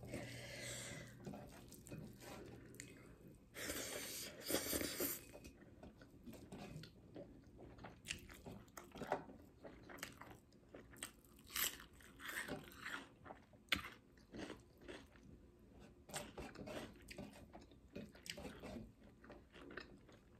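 Close-miked eating sounds: chewing and crunching, a steady run of short crackling clicks and wet smacks, with a louder stretch about four seconds in. Fingers mixing rice on a steel plate.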